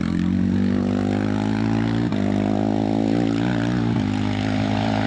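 Steyr-Puch TR II hillclimb racer's two-cylinder boxer engine, with valvetrain parts from a KTM LC4 bike engine, revving hard at full throttle. Its pitch climbs over the first second, then holds high and wavers.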